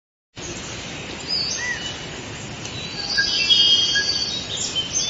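Jungle ambience: bird calls and chirps over a steady forest hiss. It starts abruptly about half a second in and is loudest around the middle.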